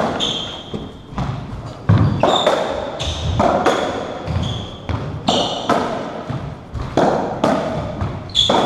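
Racketball rally on a squash court: the ball smacking off the strings, the walls and the wooden floor in quick succession, each hit ringing briefly in the enclosed court. Short high squeaks from the players' shoes on the court floor fall between the hits.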